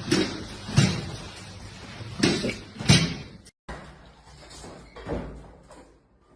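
Automatic door banging four times in quick succession as an animal fights with it, each bang sharp. The sound cuts off abruptly partway through and is followed by quieter, indistinct sounds.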